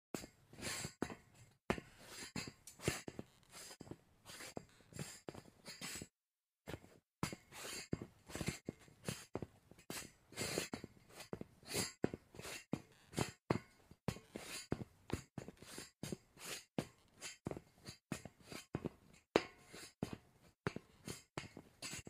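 Sneaker footsteps on a metal grate, a series of quick scuffing strikes at roughly three a second, with a brief complete break about six seconds in between takes.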